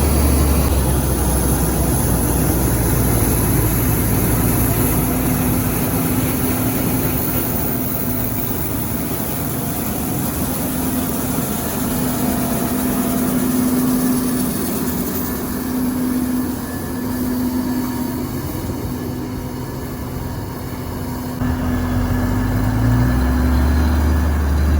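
Heavy harvest machinery's engine running steadily, with a deep hum that eases off in the middle and swells again near the end.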